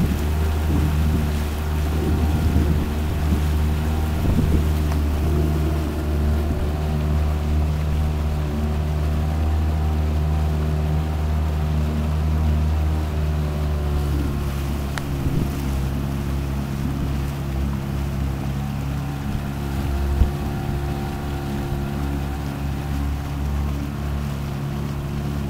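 A motorboat's engine running steadily, heard from on board as a constant low drone, with wind and water noise.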